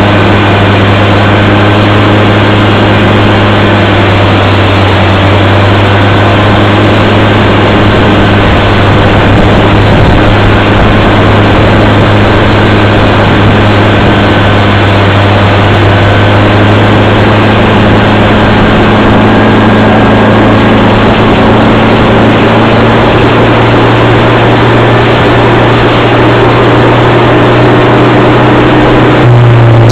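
A 1921 American No. 2 circular sawmill running under power, a loud, steady machine drone with an unchanging low hum.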